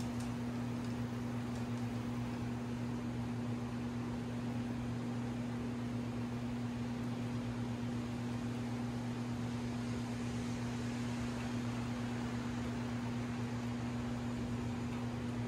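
A steady electrical hum over an even, fan-like hiss, unchanging throughout.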